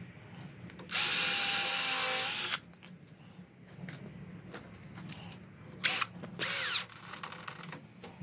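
Cordless drill-driver working on a pine batten joint: one steady run of about a second and a half boring a hole, then two short bursts near the end driving the screw home, the last one dropping in pitch as the motor winds down.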